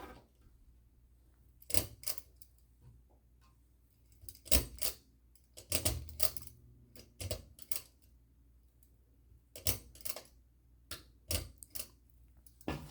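A ceiling fan's speed switch being worked: a dozen or so sharp clicks and rattles at uneven intervals, some in quick pairs, over a faint low hum.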